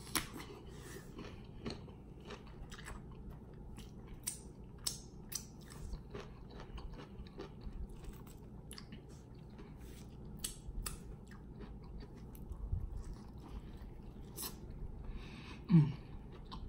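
Close-up eating sounds: a crisp bite into a cucumber spear right at the start, then steady chewing with many small crunches. Near the end comes a brief low throat sound, the loudest moment.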